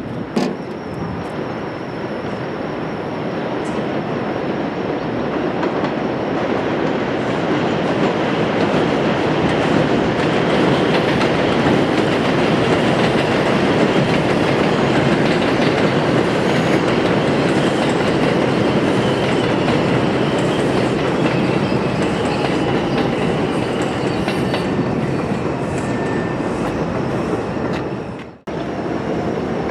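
NYC Subway R-142 train running along elevated track, its wheels clattering over the rail joints. The sound builds to its loudest about midway and breaks off sharply for a moment near the end.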